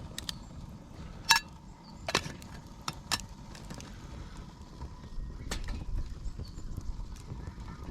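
Scattered sharp clicks and knocks, the loudest a little over a second in with a brief metallic ring, over a low steady rumble.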